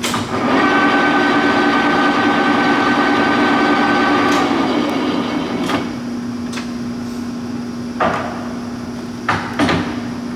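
Leblond Regal engine lathe running with a steady gear whine at 288 RPM, then spinning down about four to five seconds in. Several sharp clunks follow as the speed-change levers are shifted, over the steady hum of the motor.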